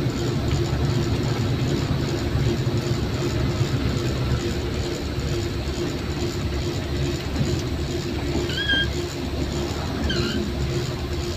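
Self-loader truck's diesel engine running steadily while driving, heard from inside the cab with the truck hauling a bulldozer. Two short high chirps come near the end.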